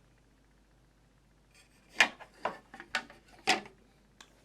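A handful of sharp knocks and scrapes of a hard part handled against a table, loudest about two seconds in, ending about three and a half seconds in.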